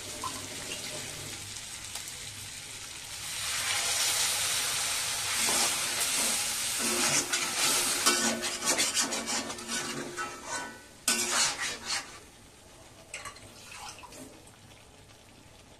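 Chicken and spice masala frying in an iron kadai. About three seconds in, water is poured into the hot pan and the sizzling swells sharply, with the spatula clicking and scraping against the iron as it is stirred. The sizzle drops away to a much quieter level near the end.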